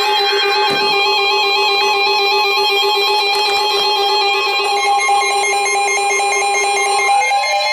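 Electronic synthesizer tones: a sustained layered chord with higher notes stepping up and down, and the low note dropping out near the end as rising sweeps begin.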